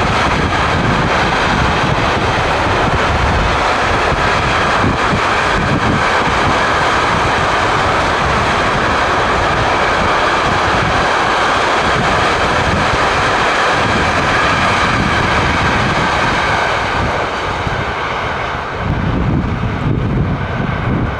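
Container wagons of a freight train rolling past, a steady wheel-on-rail noise that fades about seventeen seconds in as the tail of the train draws away. Wind buffets the microphone near the end.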